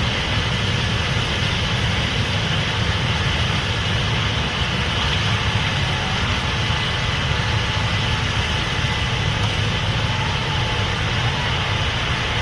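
Case IH 8250 Axial-Flow combine running steadily while harvesting corn with a 12-row corn header: a constant low engine and machinery rumble with a steady hiss above it.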